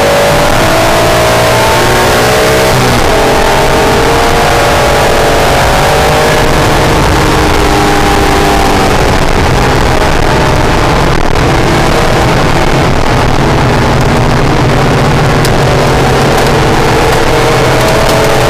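Acura NSX's V6 engine heard from inside the cabin under hard driving on track, its pitch repeatedly climbing and falling as it accelerates and shifts gears, over heavy wind and road noise.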